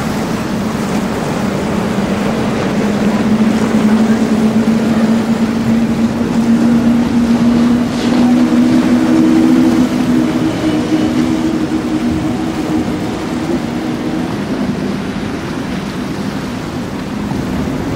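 A center console boat's engines running as it passes, heard as a steady hum over wind and water noise. The hum grows louder through the middle and fades toward the end.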